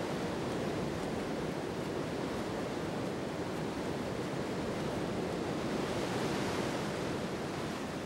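Whitewater river rapids rushing, a steady, even wash of water noise.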